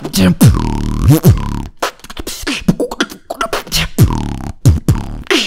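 A man beatboxing into a handheld microphone: sharp snare- and hi-hat-like clicks over deep bass sounds that slide down or up in pitch, with a held bass drone about half a second to a second in.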